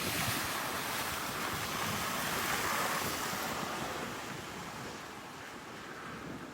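Storm surf and wind: a steady rushing noise that swells about two to three seconds in, then eases off.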